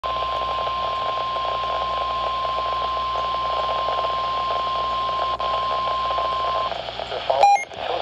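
NOAA Weather Radio warning alarm tone, a single steady 1050 Hz tone, sounding from a Midland weather radio's speaker over a hiss of radio static. The tone cuts off about a second and a half before the end, and a brief beep follows near the end.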